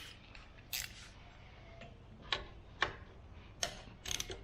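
Hand tools clinking and clicking on metal: a handful of sharp clicks at uneven intervals as belt bolts are being loosened.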